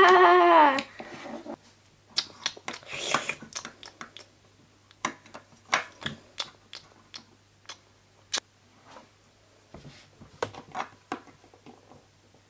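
A short, loud, drawn-out vocal sound from a person at the very start. Then scattered light clicks and taps of hard plastic toy figures and toy furniture being moved and set down on a tabletop.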